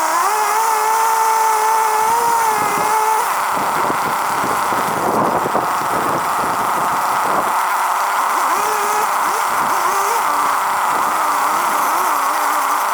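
An engine-powered machine running steadily, its pitch holding for the first few seconds and then wavering up and down.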